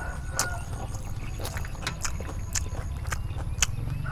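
Irregular crisp crackles and clicks of a crispy rice pancake (bánh xèo) being torn apart by hand.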